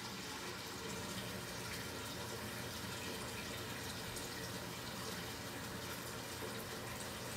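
Water running steadily from a kitchen tap into a large cooking pot as it fills.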